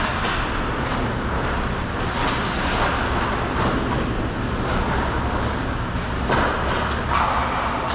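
Ice hockey play on a rink: a steady scraping noise of skates on ice over a low rumble, with a few sharp clacks, the loudest about six seconds in and another about a second later.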